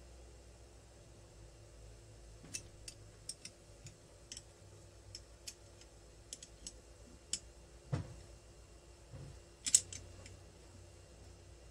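Scattered light metallic clicks and taps of steel spanners on a pair of locked nuts as a cylinder stud is tightened into a two-stroke engine's crankcase. There is a duller knock about eight seconds in and a sharper click shortly after.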